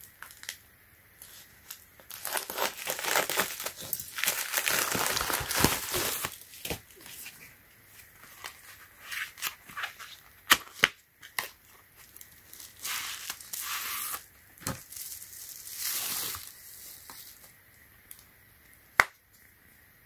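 A plastic bubble mailer being cut open with scissors and handled, its plastic rustling and crinkling in long stretches as the contents are pulled out. A few sharp clicks and taps come in between.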